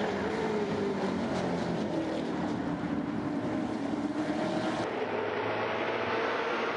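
A pack of TA2 Trans Am race cars' V8 engines running hard together, their engine notes sliding down and then rising again.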